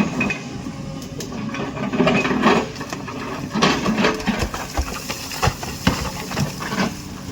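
Excavator engine running steadily while the bucket digs into a hillside, with irregular knocks and scrapes of steel against rock and soil.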